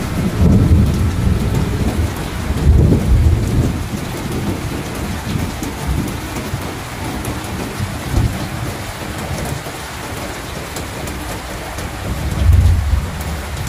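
Heavy rain falling steadily, with rolling rumbles of thunder that swell about half a second in, again around three seconds in, and once more near the end.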